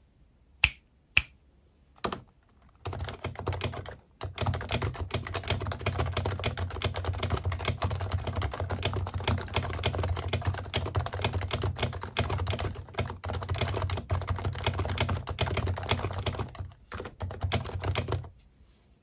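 Typing on an HHKB Hybrid Type-S keyboard with silenced Topre electro-capacitive key switches. A few single key presses come in the first two seconds, then a steady run of fast typing starts about three seconds in and stops shortly before the end, with a brief pause near four seconds.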